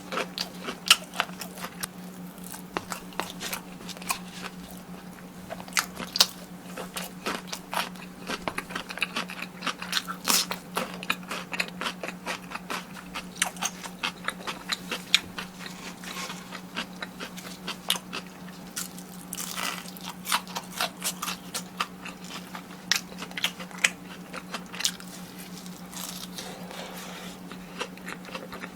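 Close-miked eating of crispy fried food: repeated crunching bites and chewing, irregular and several a second, over a steady low hum.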